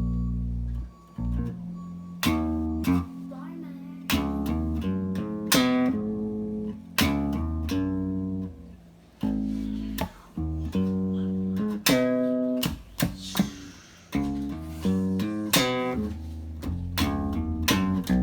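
Guitar played through a vintage tube compressor in fast mode with the threshold lowered, giving a mean growl: a run of plucked notes with heavy low end, each struck and then fading.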